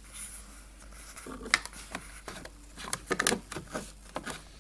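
Plastic door trim piece being worked by hand onto its clips inside a car door: irregular small clicks and scrapes of plastic on plastic, a cluster of them about three seconds in.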